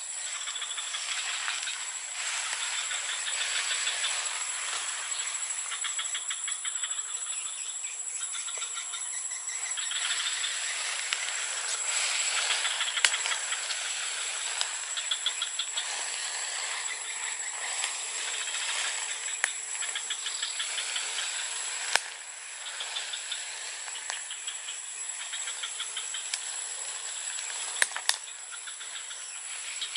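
Tropical forest insect chorus: a constant high-pitched buzz with dense, rapidly pulsing chirps layered over it. A few sharp clicks stand out, one about two-thirds of the way in and a quick pair near the end.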